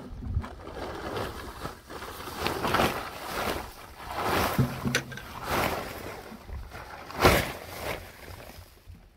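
Woven plastic tarpaulin rustling and crackling in repeated swells as it is pulled back and folded off a stack of dry brush, with the loudest crackle about seven seconds in.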